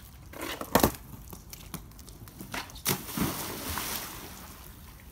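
A sharp knock about a second in, then a splash into a swimming pool just before the three-second mark, with the water churning and sloshing for a second or so after.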